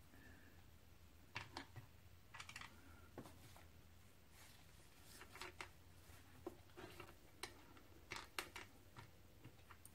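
Faint, scattered light clicks and paper rustle as thin brass shim washers are handled and picked out of their paper packet.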